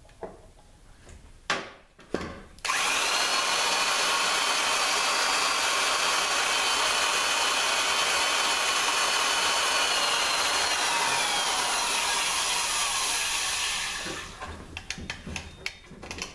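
Electric drill turning a cutter through a jig to bore out the intermediate servo bore of a Ford 5R55S transmission case for a sleeve. After a few clicks the drill starts about three seconds in and runs steadily with a high whine, which drops in pitch as it slows near the end, followed by a few clicks of handling.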